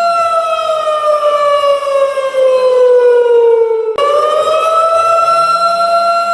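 A warning siren wailing: its steady tone slides slowly downward for about four seconds, then breaks off abruptly and glides back up to its original pitch, holding there near the end.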